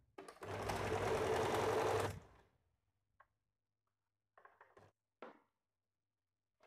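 Electric sewing machine stitching a blouse shoulder seam in one steady run of about two seconds, then stopping. A few faint clicks follow.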